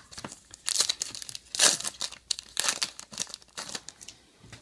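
Plastic wrapper of a Topps Star Wars trading-card pack torn open and crinkled by hand: a string of irregular tearing and crackling noises, loudest about a second and a half in.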